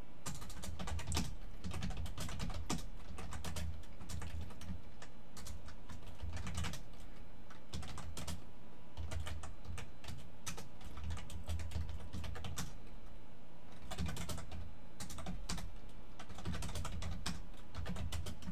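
Fast typing on a computer keyboard: keys clicking in quick runs broken by short pauses.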